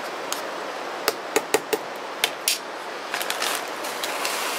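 A metal spoon knocking and scraping against a metal canteen cup while stirring stuffing and chicken: about six sharp clinks in the first half. Near the end, a lighter rustle as dry stuffing mix is poured from a pouch into the cup.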